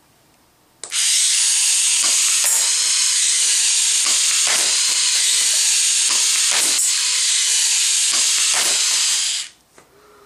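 Electric airsoft barrel mechanism from a toy RC tank firing continuously: its small electric motor and gearbox run with a loud, steady whirring hiss and a held tone, broken by irregular sharp ticks. It starts about a second in and cuts off suddenly near the end.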